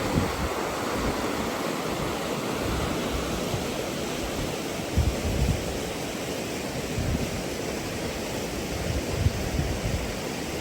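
Mashel River flowing, a steady rush of moving water, with gusts of wind buffeting the microphone now and then.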